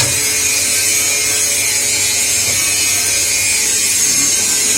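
CNC slant-bed turning lathe running through its machining cycle: a steady, loud, high-pitched hiss and whir.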